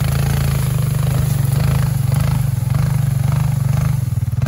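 Four-wheeler (ATV) engine running steadily at low speed under load while it tows a dead riding mower, holding one even pitch with no revving. Faint scraping of dry brush mixes in.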